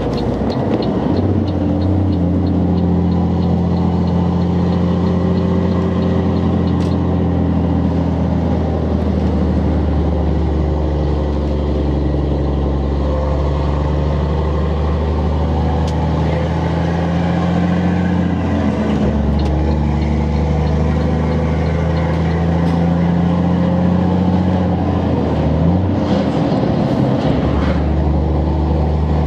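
A Volvo FH12 truck's inline-six diesel is running under way through a loud, open high-pipe exhaust. It holds a steady engine note, with the pitch stepping about a second in, again about two-thirds of the way through, and once more near the end.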